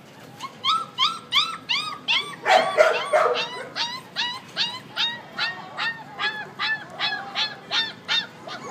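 Rottweiler puppy yelping and whimpering over and over, short high rising-and-falling cries at about two to three a second, with a louder, rougher burst about two and a half seconds in.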